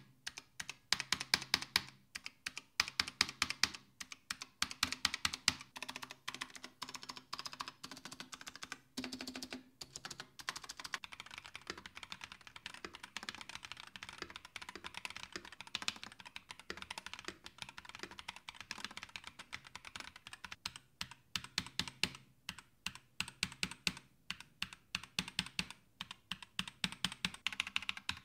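Fast typing on a Glorious GMMK 3 HE keyboard with magnetic Hall-effect switches and PBT keycaps, giving a deep, thocky keystroke sound. Runs of rapid keystrokes are broken by brief pauses.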